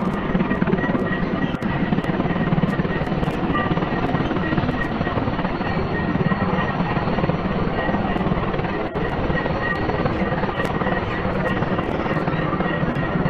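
Bell 429 helicopter running on the ground with its main rotor turning: the steady whine of its twin turboshaft engines over the even noise of the rotor.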